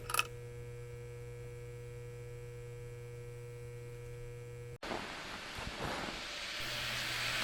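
A steady electrical hum with a few faint steady tones above it, cutting off abruptly about five seconds in; then rain begins, an even hiss that grows slowly louder.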